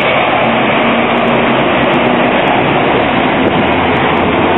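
Steady street traffic noise from buses and a tram on a city tramway street.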